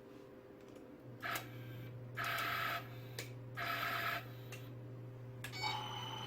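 A Kwangil Chrono X2 electronic let-off controller running on test. A low electrical hum comes on about a second in, then three short whirring buzzes, then a steady high-pitched electronic whine from just before the end.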